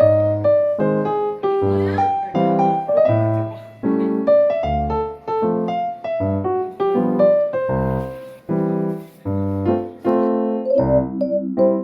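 Background music: a piano or electric piano playing a bouncy tune of short, evenly paced chords.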